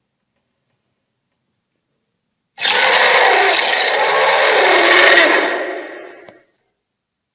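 A harsh, rough-textured film sound effect that starts suddenly about two and a half seconds in, holds for about three seconds and then fades out.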